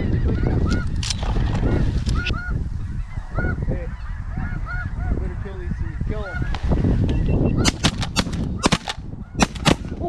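A flock of snow geese calling, with many overlapping honks. Near the end comes a rapid volley of shotgun shots, several in under two seconds, as the hunters open fire on the birds.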